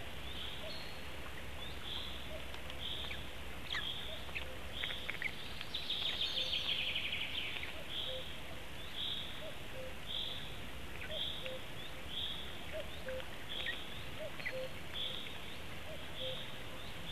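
A bird calling steadily, a short high note repeated about once or twice a second, with a brief louder rasping call about six seconds in, over a low background rumble.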